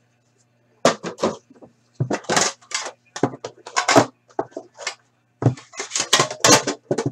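Packaging on a sealed Upper Deck The Cup hockey card tin being torn, rustled and pulled off, then the foam-lined tin being opened: a quick run of sharp rustles and scrapes over a low steady hum.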